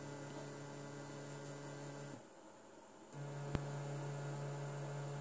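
Stepper motor running at a constant step rate, a steady low-pitched hum with overtones, driven by step pulses whose timing jitter has been reduced in software. It runs about two seconds, stops for about a second, then runs again, with a sharp click about three and a half seconds in.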